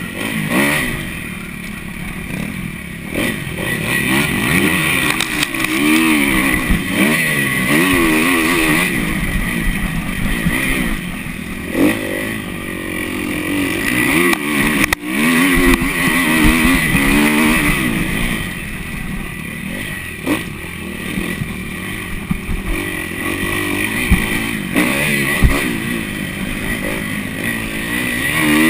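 Kawasaki KX250F motocross bike's single-cylinder four-stroke engine, heard from on board, revving up and down over and over as the rider works the throttle and gears.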